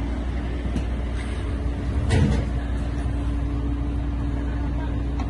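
Steady low drone of a running engine, with one sharp knock about two seconds in.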